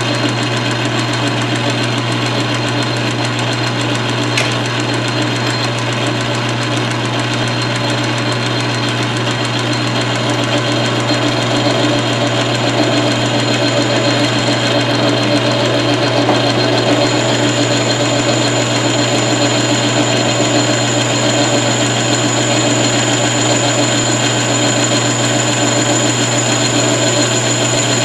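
South Bend metal lathe running under a facing cut: a steady motor and drive hum with a high, thin whine over it that drops out briefly around the middle and returns stronger. A single short click about four seconds in.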